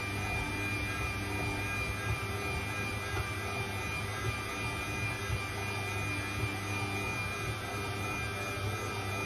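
Stand mixer motor running steadily with a low hum and a thin high whine as the dough hook kneads wet bread dough in a stainless steel bowl, with a light knock about once a second.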